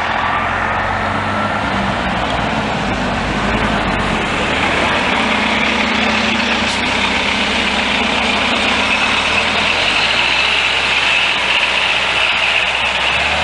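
Diesel engine of an NJ Transit highway coach bus running as the bus drives past and away, with a steady high whine that comes in about four seconds in.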